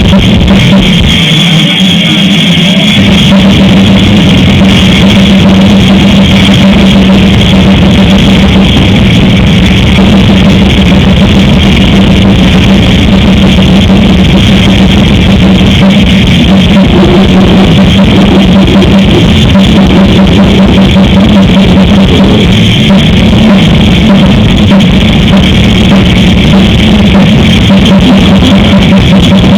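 Death-grind metal band playing live, with distorted electric guitars and a pounding drum kit, very loud and saturated throughout.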